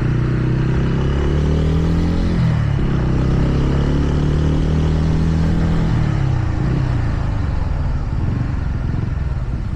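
TVS Ronin's single-cylinder engine running under way, over wind and road noise. Its pitch climbs for about two seconds, breaks briefly as it shifts gear, holds steady, then falls away about six seconds in as the throttle is rolled off.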